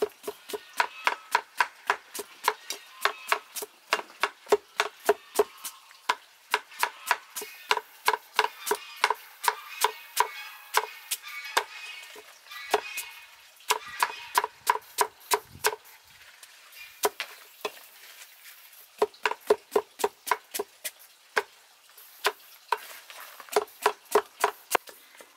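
Cleaver slicing a green vegetable into rounds on a wooden chopping board: sharp knocks of the blade striking the board, about three a second, in runs broken by a few short pauses.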